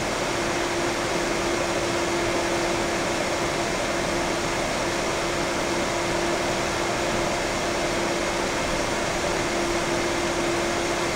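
Titan TFD-12025H12ZP 120 mm PC fan running at full speed (2200 RPM): a steady rush of air with a steady hum-like tone on top, a higher-pitched noise than slower fans make.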